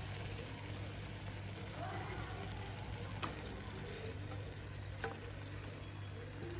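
Masala gravy sizzling softly in a frying pan over a steady low hum, with a couple of light knocks as fried jackfruit pakoras are slid in from a steel plate.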